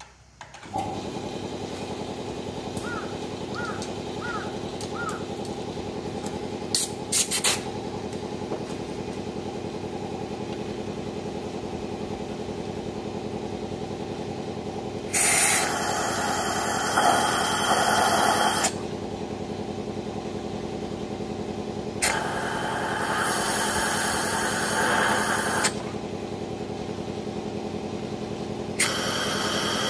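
Suzuki K6A 658 cc three-cylinder engine idling steadily, with engine conditioner from an aerosol can sprayed into it in three hissing spells of a few seconds each.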